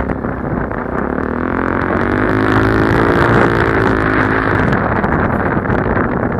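Suzuki DR-Z400 dirt bike, bored out to 470, with its single-cylinder four-stroke engine running under way. The revs climb for a second or two and then ease back off, with wind rushing over the microphone.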